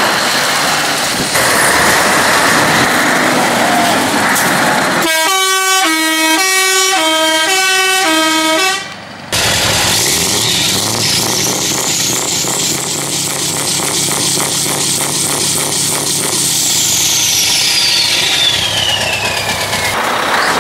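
Show lorry's diesel engine running through a large open exhaust pipe. About five seconds in, an air horn sounds for a few seconds, stepping back and forth between two notes. After a brief break the engine runs on, with a high whine that rises, holds and then falls away near the end.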